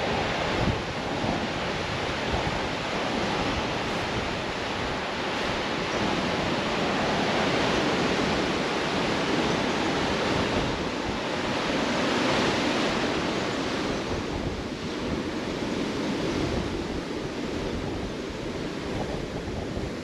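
Sea surf breaking and washing over a rocky shoreline, a continuous rush that swells a little around the middle and eases toward the end, with wind buffeting the microphone.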